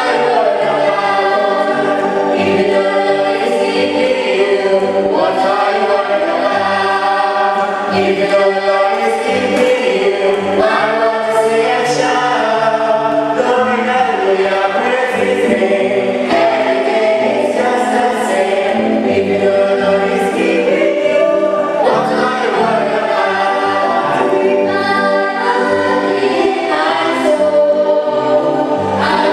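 A group of voices singing a gospel hymn together, continuously and at a steady volume.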